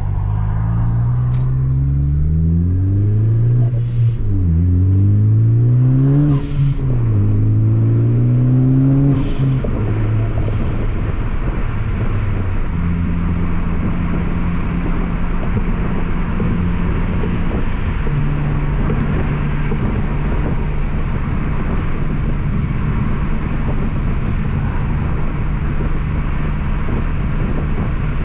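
Ford Focus ST's 2.0-litre turbocharged four-cylinder breathing through an MBRP aluminized cat-back exhaust and catless downpipe, heard from inside the cabin. The engine note rises through three pulls, dropping at upshifts about 4, 6.5 and 9 seconds in, then settles into a steady, deep-toned hum at cruising speed.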